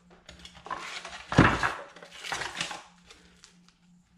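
Frozen vacuum-sealed fish packets being handled and pulled out of a cardboard box: plastic rustling and crinkling, with a solid knock about a second and a half in.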